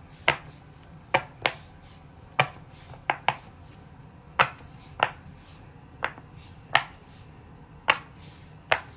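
Bubbles of a silicone Pop It fidget toy being pressed through, one at a time. There are about a dozen single pops in irregular bunches of one or two, as the players take turns.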